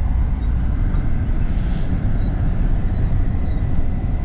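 Steady low rumble of an intercity coach bus on the move, engine and road noise heard from inside the passenger cabin.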